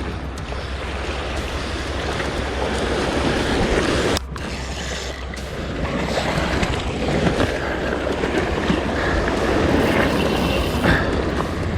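Sea surf washing against a rocky shore, with wind buffeting the microphone; the sound drops out abruptly for a moment about four seconds in.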